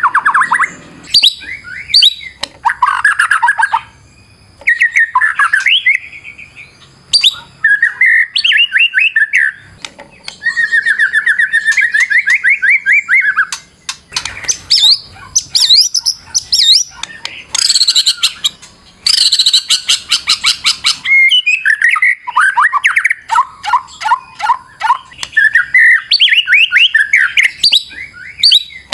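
White-rumped shama (murai batu) singing a long, varied song. Fast trills, rising and falling whistled sweeps and harsh rattling phrases follow one another with brief pauses between them. A high, dense rattling stretch comes about two-thirds of the way through.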